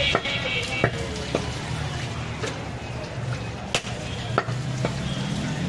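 Heavy butcher's knife chopping goat meat on a wooden stump block: a handful of sharp knocks at uneven intervals, the loudest about two-thirds of the way through.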